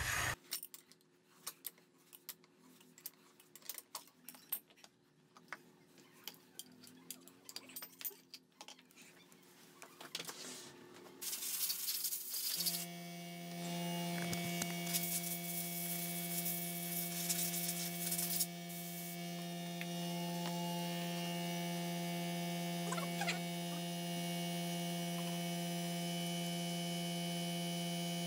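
Faint scattered clinks of metal tools and parts being handled. Then, about halfway through, a steady electrical hum with a high hiss sets in and holds level.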